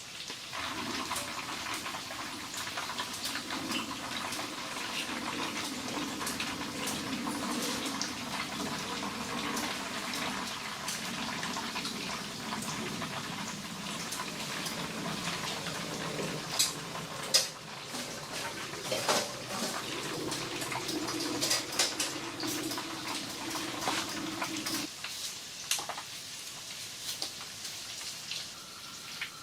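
Water running or pouring steadily, with drips and scattered sharp taps; the running water stops abruptly about 25 seconds in, leaving the drips and taps.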